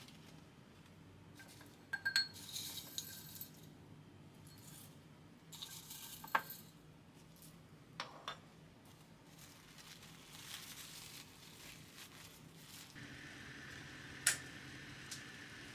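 Kitchen items being handled and set down: a handful of light clinks and knocks, some with a short ring, spread out with pauses between them, over a faint steady hum.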